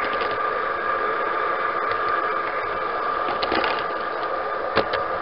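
G-gauge model train running along garden track, heard from on board: its drive gives a steady whine, with scattered clicks from the wheels on the track and a sharper click near the end.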